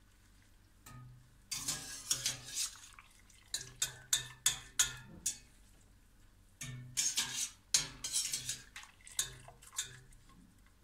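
Wire-mesh strainer scooping cooked penne out of a stainless steel pot and tipping it into a pan of cream sauce: metal clinking and scraping against the pot and pan, with wet pasta dropping and water dripping. The clatter comes in two busy spells, about a second and a half in and again about seven seconds in.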